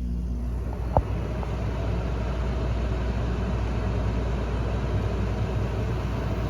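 A 1990 Friedrich casement 6,200 BTU window air conditioner running just after being switched on, its fan and Matsushita compressor giving a steady low hum with air noise. There is a sharp click about a second in.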